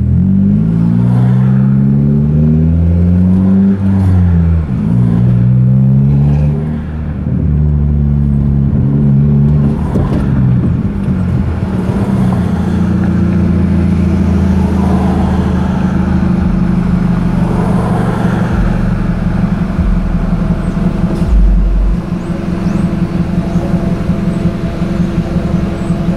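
Mazda 3's 2.3-litre four-cylinder engine pulling through the gears, the revs rising and dropping back at each shift several times in the first ten seconds, then settling to a steady idle.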